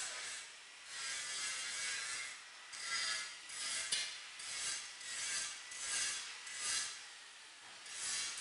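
Thick rubber glue hose rubbing and scraping as it is handled and dragged, in a run of short rasping rubs, about one every two-thirds of a second through the middle.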